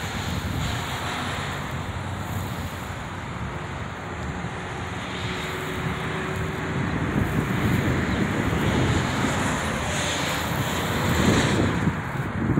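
Wind buffeting the microphone, strongest about ten seconds in, over a steady low rumble of distant engine noise.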